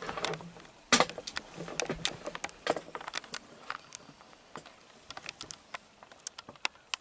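Handling noise from a hand-held video camera being swung around: a run of sharp clicks and knocks, the loudest about a second in, growing sparser and fainter over the last few seconds.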